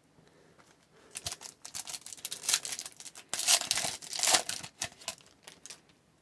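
A trading-card pack wrapper being torn open and crinkled. The dense crackling starts about a second in and is loudest around the middle.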